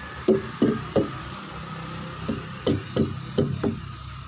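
Truck tyres being struck with a hook to check their inflation by ear: eight knocks, three in quick succession, then after a pause five more. A tyre low on air gives a different sound when struck.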